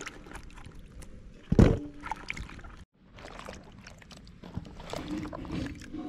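Cut eggplant pieces dropped into a steel bowl, with one loud knock about a second and a half in. Then cut eggplant is swished by hand in water in a clay bowl, splashing and sloshing.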